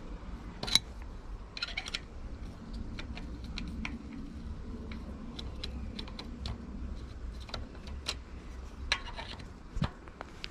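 Scattered light metallic clicks and taps as a SRAM X01 Eagle AXS rear derailleur is fitted and bolted onto the bike's mech hanger. The sharpest click comes about a second in, with small rattling clusters near two seconds and near the end.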